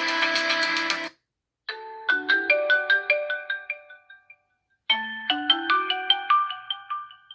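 HUAWEI P30 Lite ringtones. One ringtone's music cuts off about a second in. After a short gap the next ringtone starts: a short melody of quick struck notes that die away, played twice with a brief pause between.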